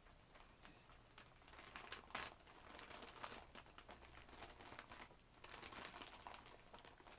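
Motherboard packaging crinkling and rustling as it is handled and opened: irregular faint crackles, louder about two seconds in and again around six seconds in.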